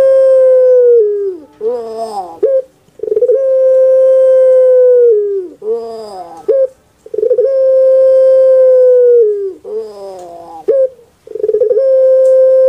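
Puter pelung (Barbary dove, Streptopelia risoria) cooing: a long, steady, loud coo that sags in pitch at its end, followed by a short wavering run of falling notes. The call repeats about every four seconds, three times over, with a fourth long coo starting near the end.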